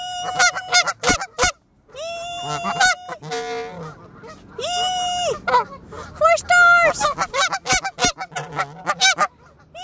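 Canada geese honking at close range: several honks, some drawn out about a second and others short and clipped. Between them come a few sharp taps of a goose's bill striking the camera.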